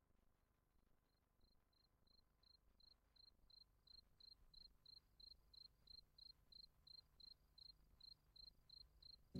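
A cricket chirping: faint, evenly spaced high chirps at one steady pitch, about three or four a second, starting about a second in and growing steadily louder.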